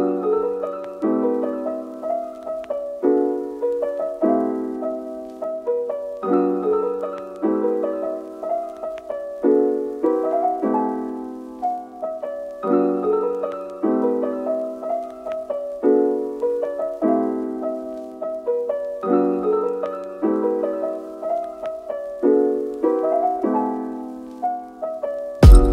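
Background piano music: a simple phrase of notes repeating over and over.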